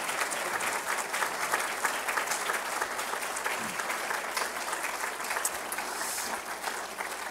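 Audience applauding: many hands clapping in a dense, steady patter that thins a little near the end.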